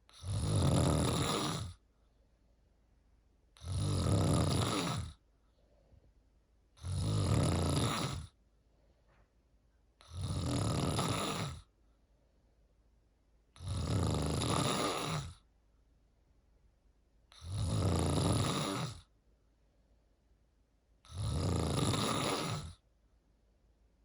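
A sleeper snoring in a slow, regular rhythm: seven snores, each about a second and a half long, one roughly every three and a half seconds, with quiet between them.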